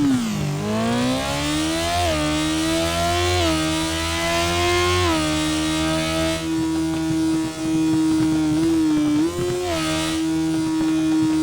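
Sport motorcycle engine under way. Its pitch dips briefly at the start, climbs in small steps over about five seconds as the revs rise, then holds a steady drone at constant revs.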